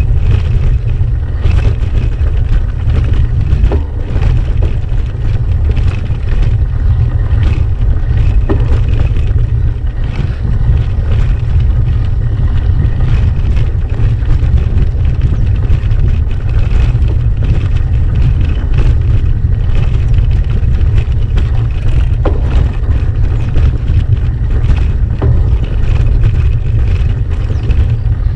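Continuous wind and vibration rumble on an action camera's microphone as a gravel bike rolls over a rough stony track, with frequent small rattles and knocks from the bike over the stones.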